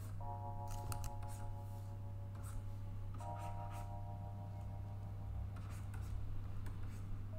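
Short scratchy strokes of a stylus on a pen-display drawing tablet, over soft background music of held chords that change twice, and a steady low hum.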